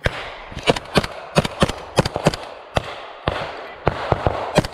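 Rifle fire from several soldiers: about fifteen sharp single shots at an uneven pace, some coming close together, each with a short echo among the trees.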